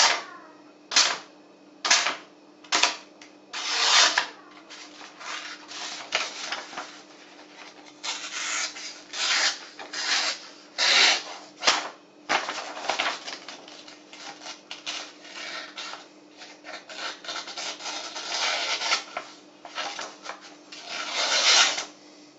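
A Sanrenmu folding knife's blade slicing through a sheet of printer paper, with the paper rustling as it is held and cut: a series of paper-cutting strokes, short and sharp in the first few seconds, then longer, drawn-out ones. It is a sharpness test on a freshly sharpened edge.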